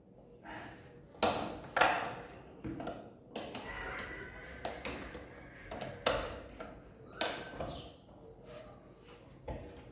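A run of sharp knocks and clinks, about half a dozen loud ones, from tools and metal parts being handled while a washing machine's drive mechanism is taken apart, with a brief ringing near four seconds in.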